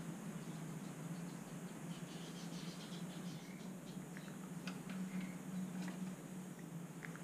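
Scattered light clicks and taps of a common hill myna moving about its wooden cage, over a steady low hum.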